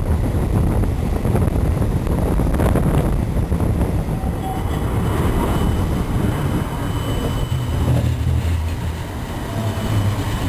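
Siemens Combino Supra tram running along the track, heard from aboard: a steady low rumble of wheels on rails. A faint high steady tone joins about four and a half seconds in.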